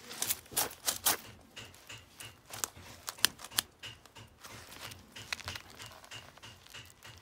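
Steel plate mitten gauntlets with mail cuffs being handled and flexed: irregular clicks and clinks of mail rings and plates, with light rustling. The sharpest clicks come in the first half.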